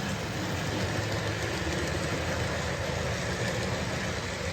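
Model train running on the layout track: a steady, even rumble of wheels and motor.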